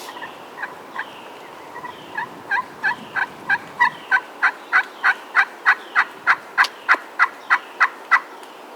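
A long, even run of turkey yelps, about three a second, starting soft and building steadily louder before stopping about eight seconds in. A small bird chirps faintly and repeatedly in the background.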